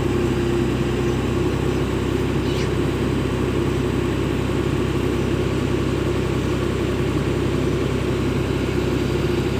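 Heavy diesel engine idling steadily, with an even low running tone and no change in speed.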